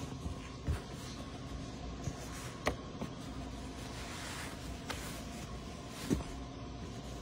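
Thin nonwoven protective seat cover rustling as it is pulled and handled over a car seat, with a few short knocks, over a steady low hum.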